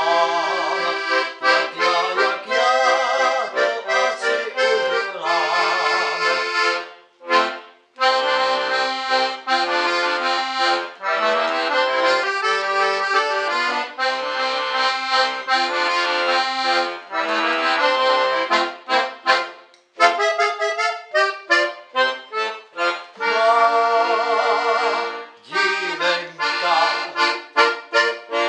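Solo accordion playing a tune with melody over held chords, breaking off briefly about seven seconds in. From about twenty seconds in it switches to short, clipped chords, then held chords again, then clipped chords near the end.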